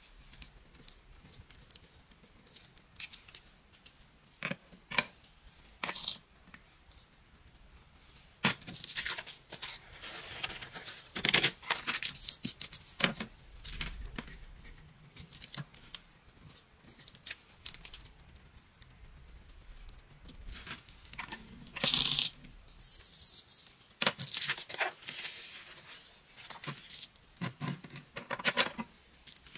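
Irregular close-up scratchy rustles and crackling rips of paper handling: tweezers peeling the protective backing off a sticky sand-art sheet, with coloured sand and glitter poured onto the paper and shaken or brushed off.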